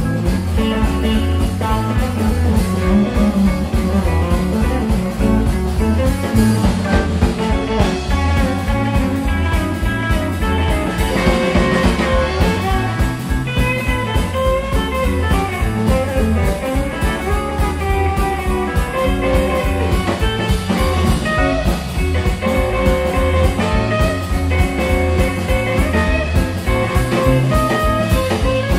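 Live blues boogie band playing an instrumental passage: electric guitar lead lines in quick runs of notes over electric bass and a drum kit keeping a steady beat.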